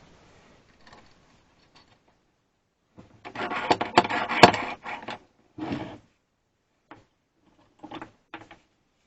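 Metal bar clamp being handled and worked: a clattering run of metal clicks and scraping for about two seconds in the middle, a short scrape just after, then a few light knocks.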